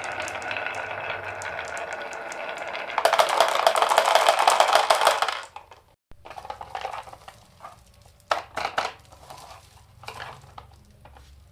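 Many marbles rolling and clattering down a marble run. First a steady rolling hum, then a loud, dense rattle of balls knocking together for about two seconds that cuts off suddenly around the middle, followed by scattered single clicks.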